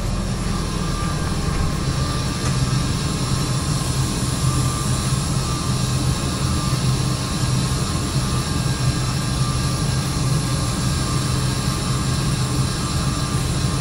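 Steady running of an idling semi truck with a continuous hiss of air, at first taken for an air leak and then thought to be the tires airing up.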